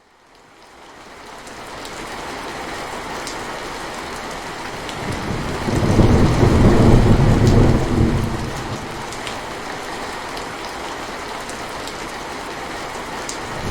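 Steady rain with a roll of thunder swelling and fading about six seconds in.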